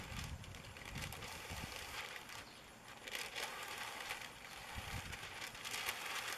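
Roofers working on the ridge of a roof: irregular rustling and scuffing with scattered light knocks as roofing membrane is handled.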